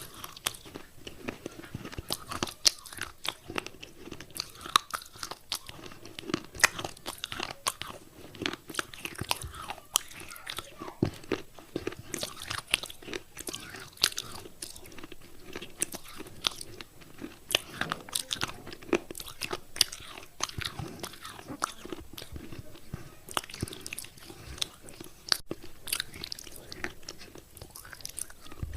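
Wet clay pot pieces crunching and crumbling, a steady run of irregular short, sharp crunches and crackles.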